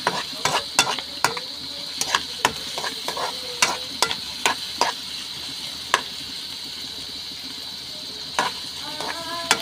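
Sliced onions and garlic sizzling in hot oil in a metal wok, with a utensil clinking and scraping against the pan as they are stirred. The clicks come quickly for about six seconds, then pause and return a few times near the end.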